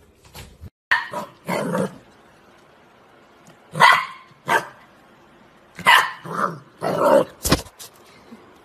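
Golden retriever puppy barking: a series of about eight short, high barks with pauses between them.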